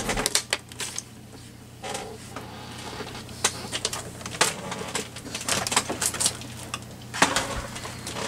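Scattered clicks and knocks of a plastic stamping platform and its magnets being handled and put away, over a steady low hum.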